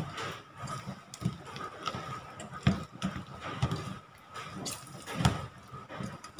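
Spatula mixing sweet potato strips with batter in a stainless steel bowl on a steel counter. A handful of dull knocks at irregular intervals, with wet scraping between them.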